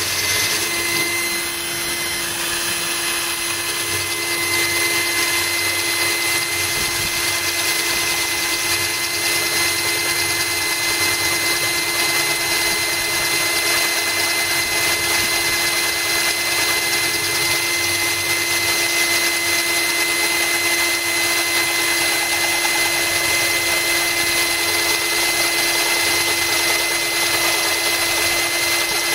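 Cordless drill running steadily with a constant whine, its bit grinding a hole into thick glass that is kept wet with water from a hose.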